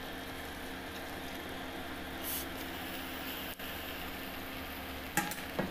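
Egg-and-noodle omelette cooking in a frying pan: a steady sizzle and hum, with two light knocks near the end.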